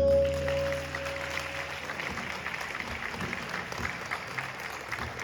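The last tabla and string notes ring on and fade away over the first two seconds, giving way to audience applause.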